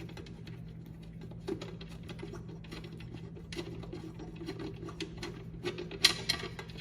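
Small metallic clicks and taps of an Allen wrench being handled and worked on the saw's blade-cover screws, with a few sharper clacks about six seconds in. A faint steady low hum runs underneath.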